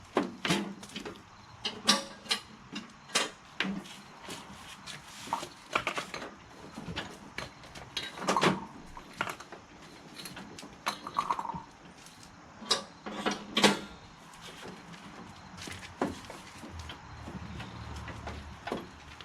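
Irregular clanks and knocks, a dozen or so spread unevenly over the stretch, like hard objects or metal parts being handled and set down.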